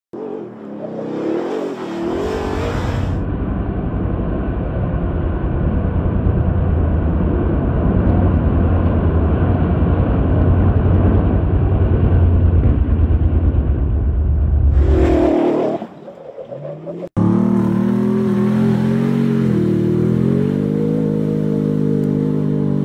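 Ford F-150 Raptor pickup engines worked hard on dirt in a run of separate clips. First comes a long stretch of steady high-rev running as the truck spins its wheels in dust. After a brief quieter break, an engine revs, its pitch rising and dipping.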